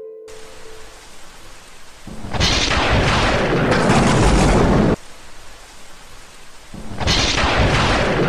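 Rain falling steadily with two long rolls of thunder. The first rumble comes about two seconds in and cuts off suddenly a few seconds later; the second begins near the end.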